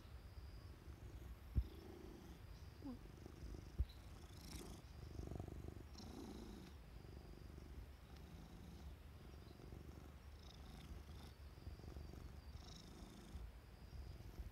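Domestic cat purring quietly, a low rumble that swells and fades in patches, with two short taps in the first four seconds.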